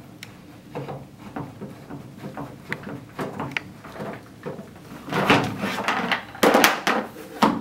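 Plastic base and bucket of a poultry drinker being handled while a nut is hand-tightened onto the screw that joins them. It is a run of small clicks and scrapes, with louder knocks and rattles in the last couple of seconds.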